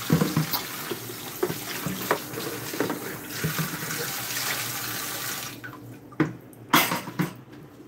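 Tap water running into a stainless-steel sink as a plastic basin is rinsed under it. The water stops about five and a half seconds in, and a few sharp knocks follow as the basin is handled.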